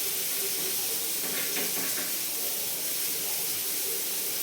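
Fish frying in hot oil in a pan, a steady sizzle with a few faint crackles.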